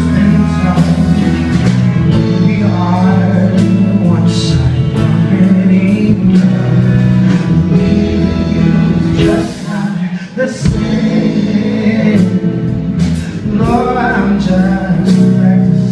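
Live band and orchestra playing a song, with several singers singing together over keyboard and a steady low bass line. The music drops away briefly about ten seconds in, then comes back in.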